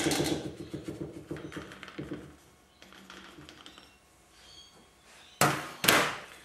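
Steel fork spring being drawn up and off a motorcycle fork's damper rod, its coils rattling and clicking quickly against the rod, then fading to light scraping. Near the end come two loud knocks about half a second apart.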